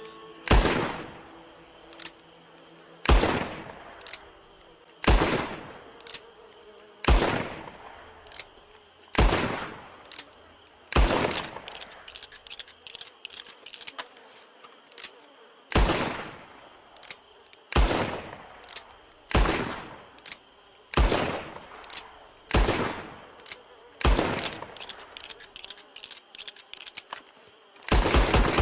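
Colt Single Action Army (Peacemaker) revolver gunshots: about a dozen single shots, roughly one every two seconds, each with a short echoing tail and light clicks between them. There is a pause of a few seconds midway, and a quick run of shots near the end.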